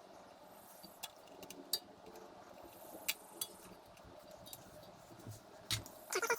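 Faint scattered clicks and light taps of hands working on a mini-bike's wiring and zip ties.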